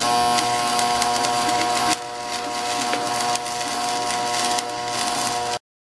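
Electric arc welding: the arc crackling and sizzling steadily over the welder's electrical hum. It goes a little quieter about two seconds in and stops abruptly near the end.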